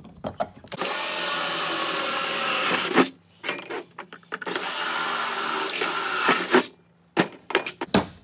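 Cordless drill boring holes through a metal square-tube bracket: two runs of a steady high whine, each a little over two seconds, one per hole, with knocks and clatter of the bar being handled between and after them.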